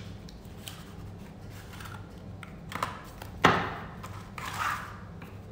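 Objects being handled on a table: a few light taps and clicks and one sharp knock about three and a half seconds in, followed by a brief rustle, over a steady low hum.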